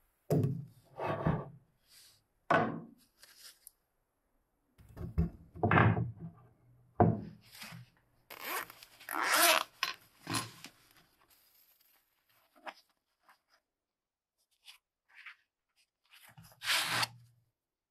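A string of short handling noises: knocks and scrapes of metal parts as a sharpening jig's clamp is fitted to an iron axe head on a wooden table, then a fabric pouch of sharpening stones rustling near the end.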